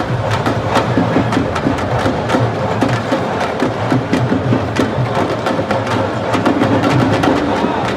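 Sabar drums playing a fast rhythm of sharp, dense strikes.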